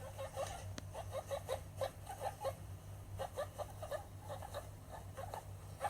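Guinea pig calling in a steady run of short squeaky calls, about three or four a second, in little groups. A single sharp click comes just under a second in.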